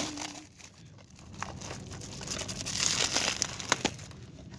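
Clear plastic shrink-wrap crinkling and tearing as it is peeled off a DVD case, with a few sharp clicks of fingers against the plastic case. The crinkling builds up and is loudest about two to three seconds in.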